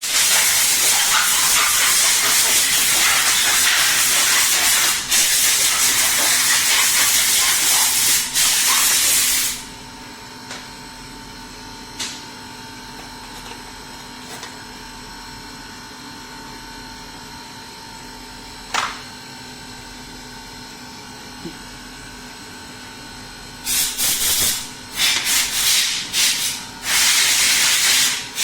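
Loud steady hiss of air or spray for about nine and a half seconds that cuts off abruptly. A low steady hum and a few sharp clicks follow, then several short hiss bursts near the end.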